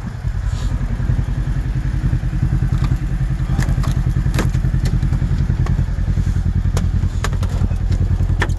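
Kawasaki KRX 1000 side-by-side's parallel-twin engine running steadily at an even pace, with a handful of sharp clicks or knocks in the second half.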